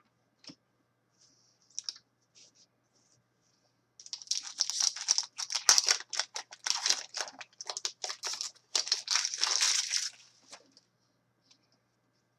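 Foil wrapper of a hockey card pack crinkling and tearing as it is opened, in a dense run of crackles lasting about six seconds, starting about four seconds in. A few light rustles and ticks come before it.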